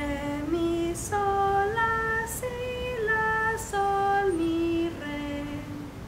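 A woman singing a slow, simple children's song in the pentatonic scale, unaccompanied, each syllable held on a steady note as the melody steps up and back down.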